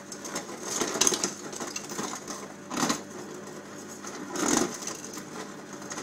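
Samsung Showcase fridge freezer's door ice dispenser in crushed-ice mode, crushing ice and dropping it out of the chute: a continuous rattling, clicking grind with louder bursts about a second in, near three seconds and around four and a half seconds.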